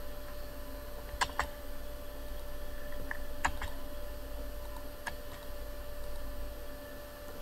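A handful of sharp, irregularly spaced clicks of a computer mouse, over a steady electrical hum.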